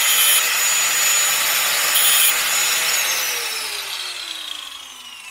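Angle grinder with a thin cut-off disc running at full speed, touching the teeth of a chainsaw chain twice (right at the start and about two seconds in) with a short grinding hiss each time as it sharpens them. About three seconds in it is switched off and its whine falls steadily in pitch as the disc spins down.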